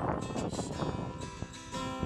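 Acoustic guitar being strummed, with a chord left ringing from about a second in.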